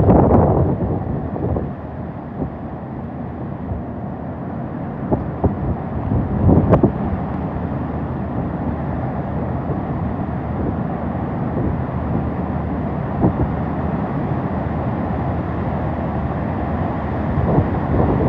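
Hurricane wind buffeting the microphone: a loud, steady rush with stronger gusts near the start and about seven seconds in, and a few sharp knocks.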